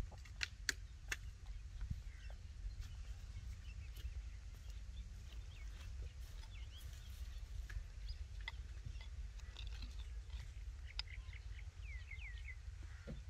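Open-air rural ambience: a steady low rumble with small birds chirping here and there, their chirps clustering near the end. A few sharp clicks come in the first second or so.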